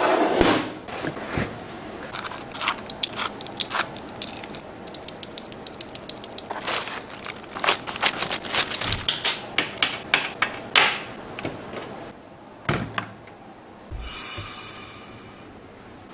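Plastic keycaps clacking on a keyboard: a long run of irregular sharp clicks and taps, quickest toward the middle. A brief buzzing tone comes about two seconds before the end.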